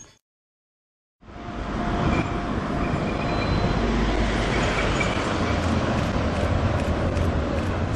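Near silence for about a second, then a Keihan 600-series two-car tram swells in and runs across a steel girder bridge with a steady low rumble of wheels and running gear.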